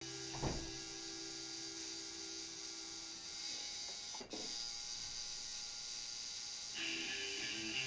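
Tattoo machine buzzing steadily, with a brief thump about half a second in and another about four seconds in. Music comes back near the end.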